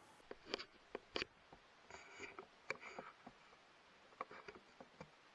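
Faint irregular clicks and taps of rifle and scope gear being handled, with a little scratchy rustling in between.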